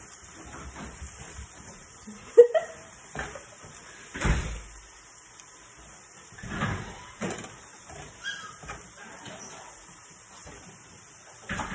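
Metal kitchen tongs clacking and knocking against the frying pan as pork chops are handled, a few sharp strikes with the loudest about two and a half seconds in, over a faint steady sizzle of frying.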